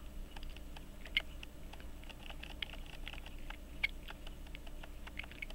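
Small, irregular clicks and light scrapes of a fingernail and a small screwdriver tip working the half-head case screws on the rim of an 18-size pocket watch movement, with two sharper clicks, about a second in and near four seconds.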